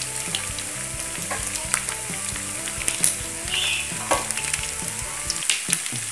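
Chicken pieces deep-frying in a wok of hot oil: a steady sizzle with scattered sharp crackling pops.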